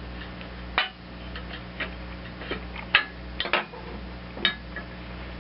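Irregular metallic clicks and clinks of a hand tool working out a 5/16 carburetor mounting stud on a small Briggs & Stratton mower engine, over a steady low hum.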